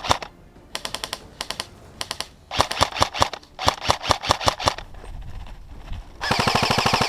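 Airsoft rifle firing: several short strings of quick, sharp shots, then a long rapid full-auto burst starting about six seconds in.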